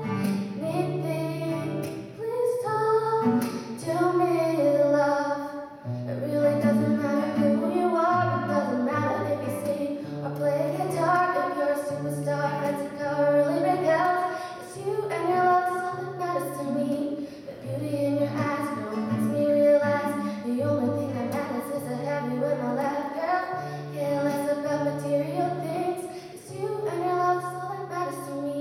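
A young female voice singing a song to her own acoustic guitar accompaniment, the guitar playing a pattern of low notes that change about every second under the melody.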